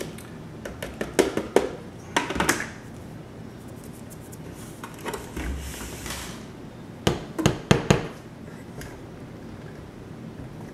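A hard plastic blender jar being handled with the motor off: the lid is pulled off and the jar is lifted from its motor base, giving scattered plastic clicks and knocks. The loudest cluster of knocks comes about seven to eight seconds in.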